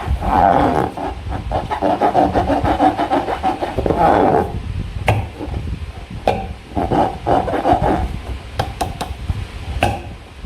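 Hands working slime and rubber balloons: bursts of squishing and rubbing with many short sharp clicks.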